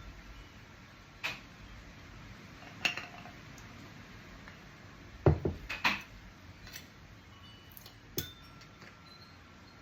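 A metal knife clinking and tapping against a glass jar several times, working thick honey down among the garlic and ginger to release air bubbles. The loudest is a heavier knock with quick clinks about five to six seconds in.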